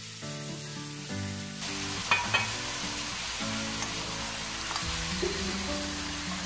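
Marinated beef chunks sizzling as they fry with tomato, onion and garlic in a granite-coated pan, stirred with a wooden spatula; the spatula knocks sharply against the pan twice about two seconds in. Background music plays underneath.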